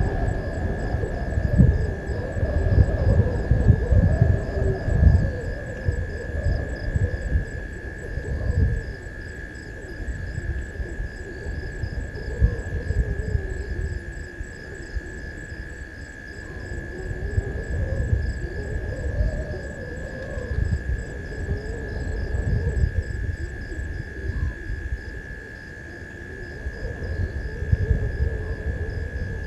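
Night insects calling, a steady high whine with fast, even pulsing, over a louder low, uneven rumble that swells and fades.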